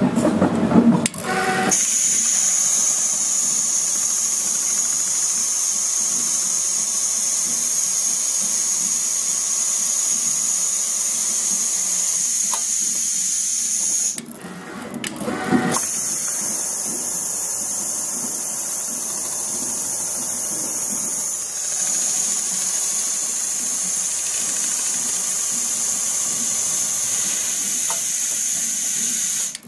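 Richpeace automatic pattern sewing machine stitching at speed as its clamped template is driven under the needle head: a steady, high-pitched machine whir. It starts about two seconds in and breaks off briefly about halfway through.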